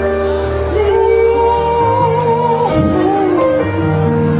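Live gospel music: a band's sustained chords under a voice holding one long high note, followed by a short wavering run about three seconds in.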